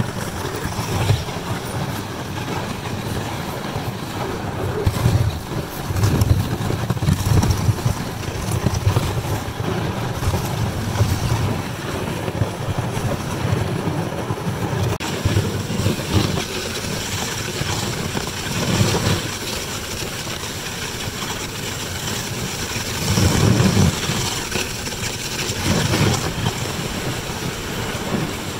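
Wind buffeting the microphone in irregular low gusts, over a steady hiss of dog-sled runners gliding across hard-packed snow.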